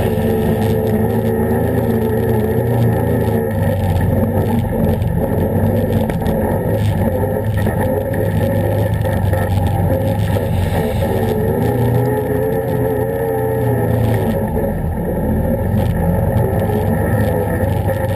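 Can-Am ATV engine running while the quad is ridden, its revs rising and falling several times, with scattered short clicks and knocks over it.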